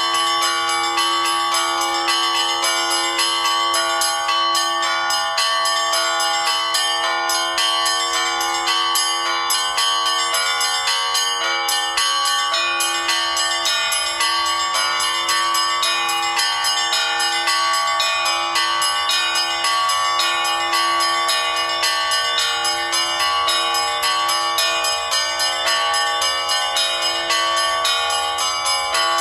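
Bells ringing continuously, struck in quick succession, their overlapping tones ringing on.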